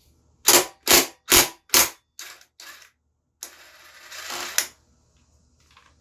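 Four loud, sharp knocks about half a second apart, then two softer ones, from motorcycle parts being worked apart. A scraping, rattling stretch follows and ends in a sharp click.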